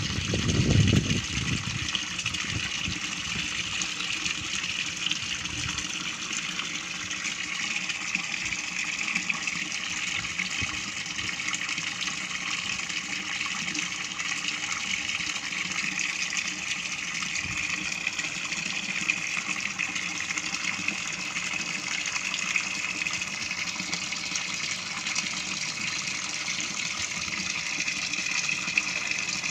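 Steady splashing and bubbling of water pouring into a fish tank from an inflow pipe, with a brief low thump in the first second.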